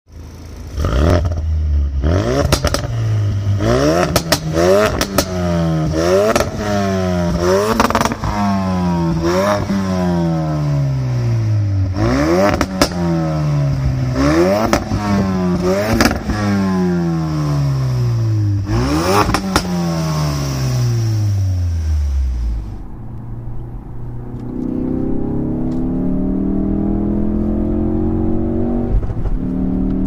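Ford Focus RS Mk3's turbocharged 2.3-litre EcoBoost four-cylinder revved about ten times at standstill through its active exhaust. Each rev rises quickly and falls away slowly, with sharp cracks among them. About two-thirds of the way through it cuts to the same engine heard inside the cabin while driving, its pitch climbing as the car accelerates.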